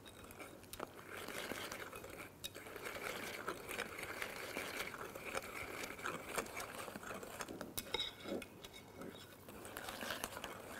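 A metal whisk stirring a runny semolina and chia-seed batter in a glass saucepan: a steady soft swishing with scattered light clicks of metal against glass.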